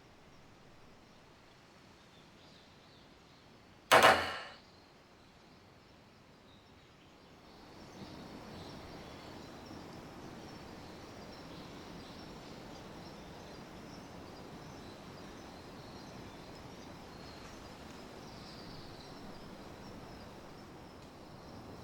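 A single sharp metallic clang with a short ring about four seconds in. From about eight seconds on, a steady outdoor background with a faint high insect chirr.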